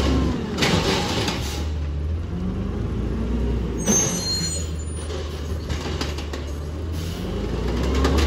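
LNG-powered automated side-loader garbage truck running, its hydraulics whining as the lifting arm works a yard-waste cart. A brief high-pitched hiss comes about four seconds in, and the truck gets louder near the end as it pulls forward.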